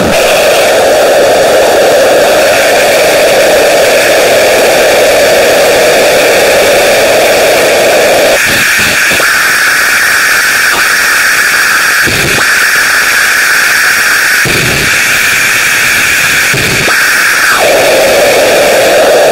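Loud, dense static-like hiss that fills every pitch. About eight seconds in, its strongest band jumps from a low rushing register to a higher one, and it drops back shortly before the end, with a few brief low thumps in between.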